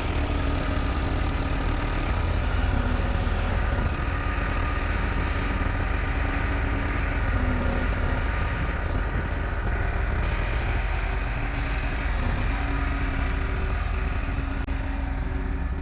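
An engine running steadily with a deep continuous rumble.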